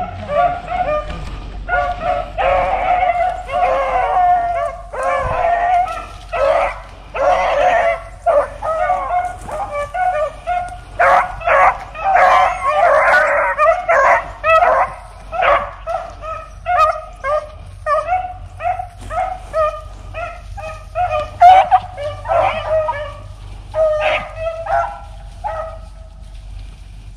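A pack of beagles baying in chorus, many overlapping calls one after another, as they run a cottontail rabbit's fresh scent trail into a thicket.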